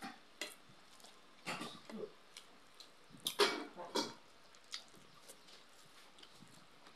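Close-up eating sounds of boiled pork eaten by hand: wet smacking and chewing with scattered short clicks, and two louder mouth noises about a second and a half in and again about three and a half seconds in.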